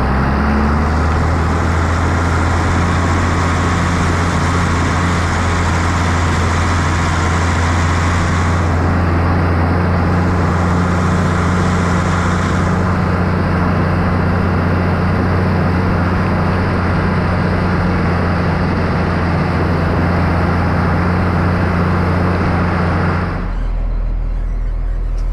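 John Deere 3650 tractor's six-cylinder diesel engine running steadily as it drives along a wet road, with a loud hiss of tyres and spray on the wet surface. Near the end the hiss and engine note drop away, leaving a low hum.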